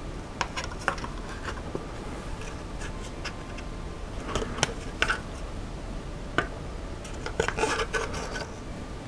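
Light clicks, taps and rubbing of small plastic and carbon-fibre parts being handled as a servo mount is fitted to an RC buggy's carbon-fibre chassis plate. A few scattered clicks come first, then clusters of clicks and rubbing about four seconds in and again near the end.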